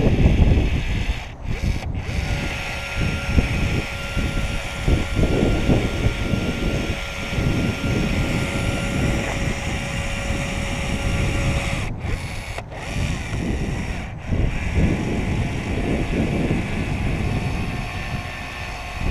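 Wind buffeting the microphone in a dense, loud rumble. A steady two-tone whine from a small power tool runs through it for about ten seconds, starting a couple of seconds in.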